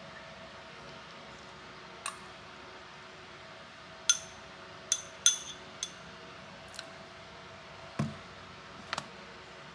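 A metal spoon clinks several times against a ceramic bowl while coleslaw is scooped out, with a duller knock about eight seconds in. A faint steady hum runs underneath.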